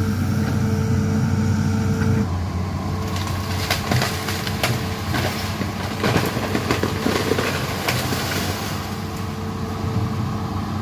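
Hitachi Zaxis 210F amphibious excavator's diesel engine running steadily, its sound changing abruptly about two seconds in. After that comes a string of sharp cracks and snaps as the arm pushes over trees and brush and branches break.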